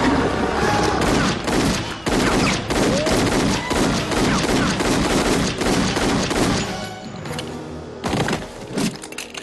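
A volley of rapid handgun gunfire, many shots a second, for about six seconds, then thinning to a few scattered shots near the end.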